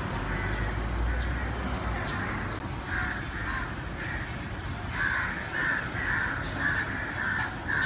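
A crow cawing, a single call about three seconds in and then a quick run of calls, about two a second, through the second half. Under it, a low rumble of street traffic, strongest at the start.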